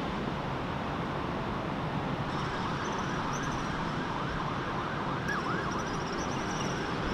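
Steady hum of city traffic, with a distant siren wailing rapidly up and down from about two seconds in.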